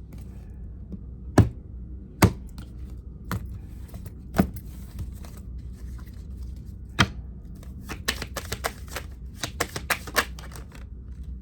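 Tarot cards being handled and laid down on a table: scattered sharp taps and snaps, then a quicker run of clicks about eight seconds in.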